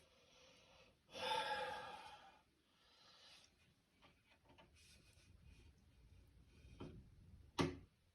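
A heavy sighing exhale about a second in, then scattered faint clicks and one sharp knock near the end, from a person fiddling with a toilet tank's fill-valve refill hose.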